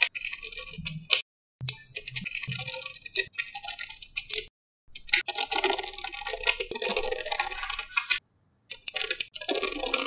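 Small magnetic balls clicking and rattling against each other as they are handled and snapped into place. The sound comes in four stretches of rapid clicks, each cut off into dead silence.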